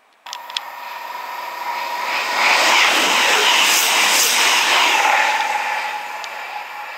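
CrossCountry Voyager diesel multiple unit passing at speed, a loud rush of wheel and engine noise that comes in abruptly, swells over a couple of seconds, peaks and then fades away.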